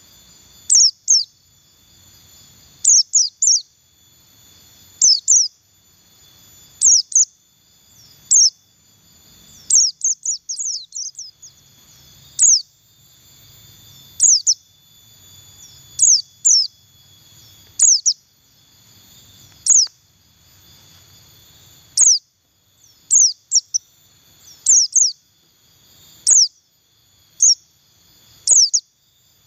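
Buxtoni white-eye chirping: short, sharp, high chirps that drop in pitch, mostly in pairs about every two seconds, with a quick run of chirps about ten seconds in.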